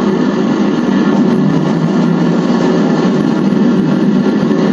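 Steady, loud rumbling roar of a spacecraft's engines in a film soundtrack, unbroken and without change in pitch.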